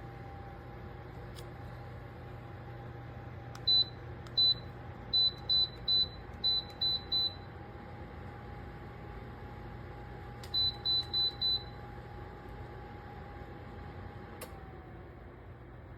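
Short, high electronic beeps from the Ayovoch ceramic tower space heater's controls, one beep per button press: a run of eight starting about four seconds in, then four more in quick succession about eleven seconds in. A steady low hum runs underneath, and a single click comes near the end.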